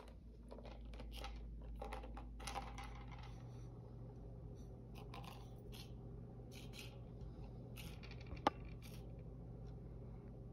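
Pistachio shells and a small plastic piece clicking and scraping across a tabletop as a cat bats at them with its paw, with one sharp click about eight and a half seconds in. A low steady hum runs underneath.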